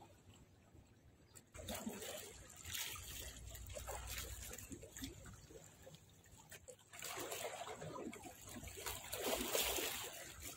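Small sea waves lapping and splashing irregularly at the water's edge, swelling louder for a few seconds at a time.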